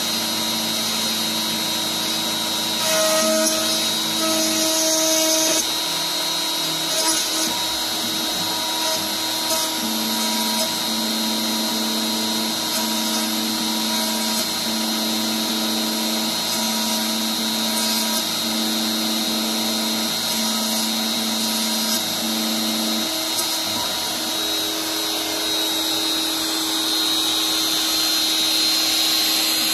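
DeWalt compact router, mounted as the spindle of a Shapeoko CNC machine, running steadily as its small bit mills a truss rod channel into a wooden guitar neck blank. There is a constant high whine, and lower hum tones come and go every few seconds as the cut moves along.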